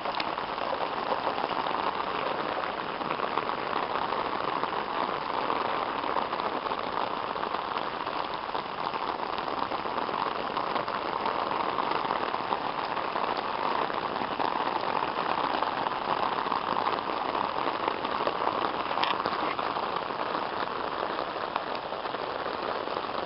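Heavy downpour: steady rain hitting the ground and surfaces, an even hiss with no let-up.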